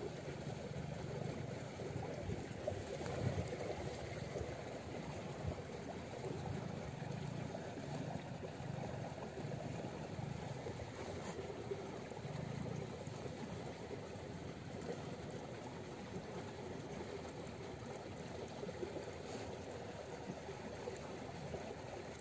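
Steady low rushing outdoor background noise, swelling and easing slowly, with a few faint ticks.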